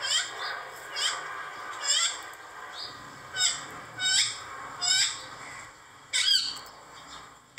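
A bird calling over and over: about seven short, shrill calls that sweep sharply down in pitch, roughly one a second.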